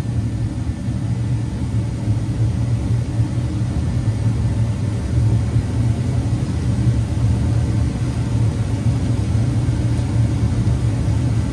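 Steady low machine hum, even throughout with no breaks or knocks.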